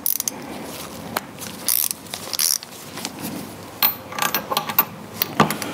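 Metal hand tools at work: a long-handled ratchet wrench and socket clicking and clinking on a bolt of a power steering pump, with short scrapes between. The clicks come in a quick run about four to five seconds in.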